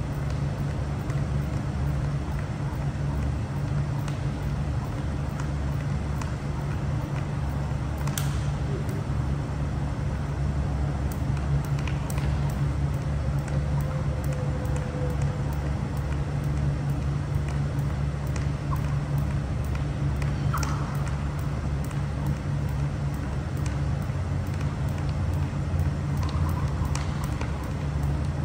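Steady low mechanical rumble of large air-moving fans in a big warehouse room, with a few scattered faint clicks.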